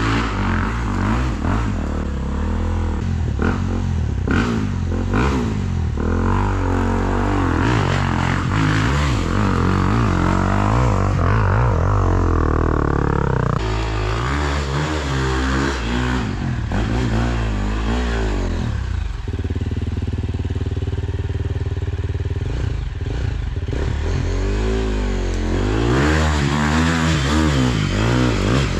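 Enduro dirt bike engines revving hard and dropping back, climbing steep ground. The pitch rises and falls again and again, and the sound changes abruptly several times.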